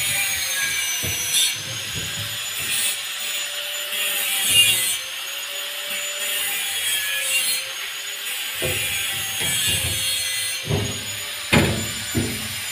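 Workshop noise: rasping strokes every second or two over a steady, slightly wavering whine. A few dull knocks near the end come from the mixer's steel grille cover being handled.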